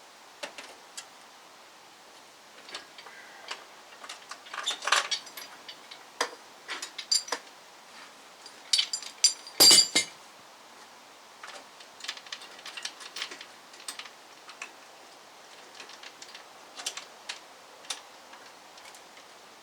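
Scattered light metallic clicks, clinks and taps of metal parts and tools, with a busy cluster about five seconds in and one louder knock just under ten seconds in.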